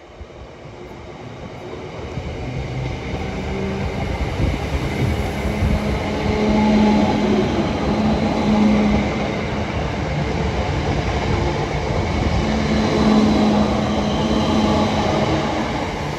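Class 321 electric multiple unit coming into the platform and running past. It grows louder over the first several seconds, then holds steady: a rumble of wheels on rails with a low steady hum.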